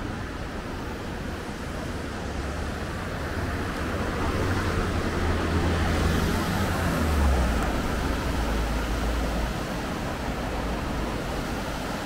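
Street traffic noise with a deep rumble, swelling as a vehicle passes, loudest about seven seconds in, then easing back.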